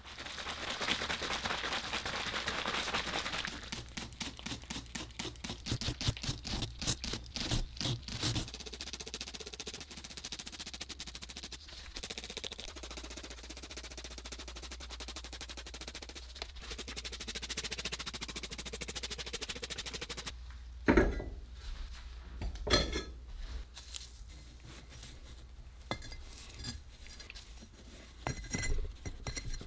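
A hand trigger sprayer spraying ceramic fiber rigidizer in quick repeated strokes onto the ceramic blanket, followed by two loud knocks and then clatter as fire bricks are handled and set in the forge.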